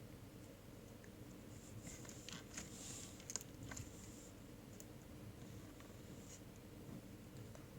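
Faint small crackles and clicks of something being handled close by, over a low steady hum. The clicks cluster about two to four seconds in, with a few scattered later.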